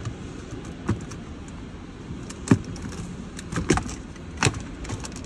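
Plastic retaining clips of a BMW F10's wood-grain dashboard trim strip snapping loose as the strip is pulled off by hand: several sharp clicks, the loudest about two and a half seconds in.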